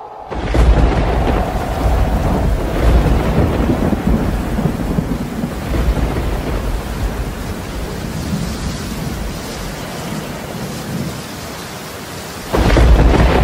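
Steady heavy rain with deep rolling thunder, and a loud thunderclap breaking in near the end.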